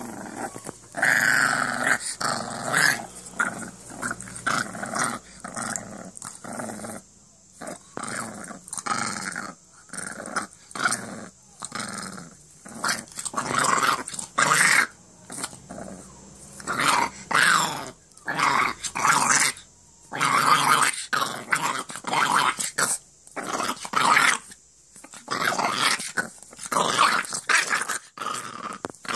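American Staffordshire terrier puppy growling over and over in rough bursts of a second or two with short pauses between, as it wrestles with a person's hand.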